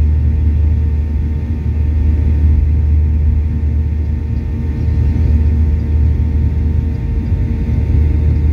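Boeing 737-800 cabin noise during the climb after takeoff: a steady, loud low rumble of the jet engines and airflow, heard from inside the cabin, with faint steady hum tones above it.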